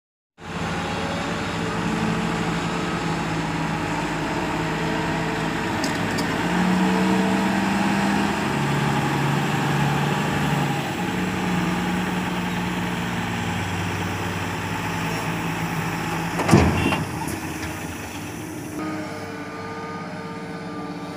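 Heavy diesel engines of a tipper truck and a Doosan crawler excavator running, the engine note stepping up and down as the truck manoeuvres. A single sharp bang about three-quarters of the way in is the loudest sound. Near the end a steadier engine hum runs as the excavator digs sand.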